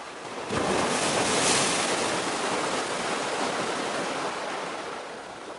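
A wave breaking and washing in: a rush of water noise that swells suddenly about half a second in, then slowly drains away over the next few seconds.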